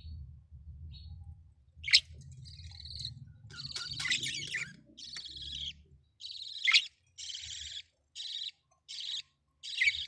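Young budgerigar chicks giving raspy begging calls in short repeated bursts, with a few sharper, louder chirps, under a low rumble in the first half.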